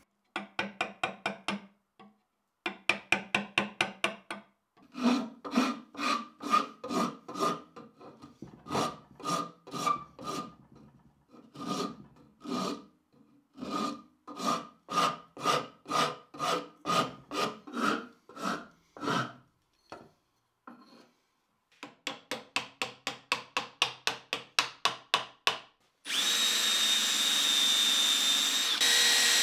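A hand rasp worked back and forth over the end of a wooden axe handle, about two strokes a second, pausing briefly and then going faster. In the last few seconds a cordless drill starts and runs steadily, boring into the end grain of the handle.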